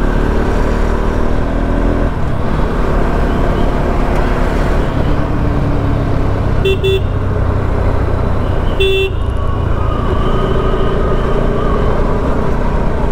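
Bajaj Pulsar RS 200's single-cylinder engine running under wind and road noise, its note falling about two seconds in as it comes off the throttle. A vehicle horn gives a quick double toot about seven seconds in and one short toot about two seconds later.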